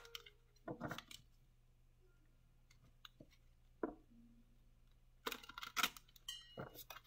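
A deck of tarot cards being shuffled by hand, the cards slapping and rustling in short bursts about a second in, once around four seconds, and in a longer run between five and seven seconds.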